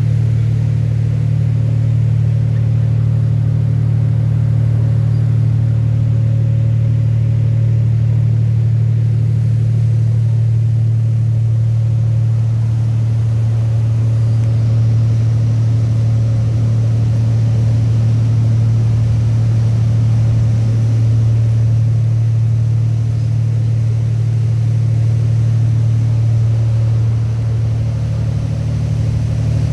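A steady, loud, low engine drone with no change in speed.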